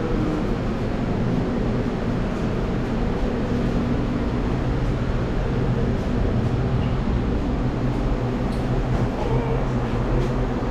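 Steady low hum and rumble of a car running, heard from inside the cabin.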